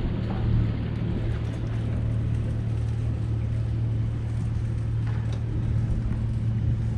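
Steady low drone of marine diesel machinery: yachts' engines and generators running close by.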